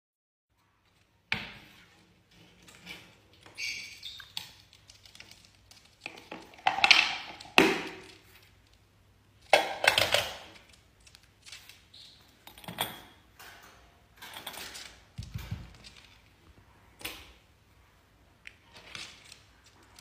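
Lovebird handling toys on a hard tabletop: irregular taps, knocks and light clinks, starting about a second in and loudest around seven to ten seconds in.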